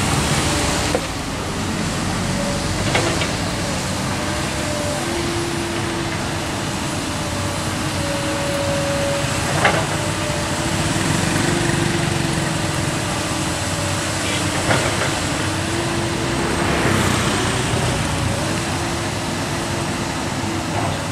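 Heavy diesel engines of a dump truck and a hydraulic excavator running steadily, with a few sharp knocks about three, ten and fifteen seconds in.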